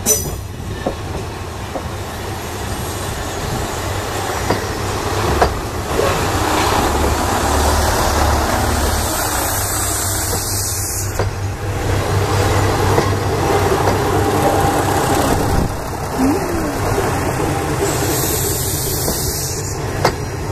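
Diesel railcar rolling slowly past, its engine thrumming under the body, with occasional sharp clicks from the wheels over rail joints.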